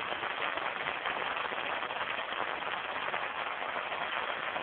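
Steady rushing of leaking water running and splashing, an even hiss with no breaks.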